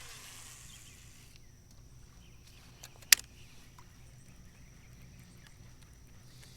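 Outdoor ambience on open water: a steady high, thin insect-like whine with faint chirps. A single sharp knock comes about three seconds in, the loudest sound, just after a smaller tick.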